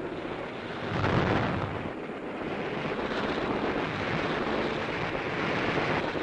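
Dubbed battle sound effects from an air attack on ships: a continuous noisy roar, with a louder rumbling swell about a second in.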